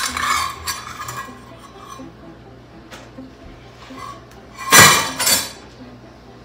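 Dishes and metal utensils clattering and clinking while baking: a sharp clink at the start and a louder clatter about five seconds in.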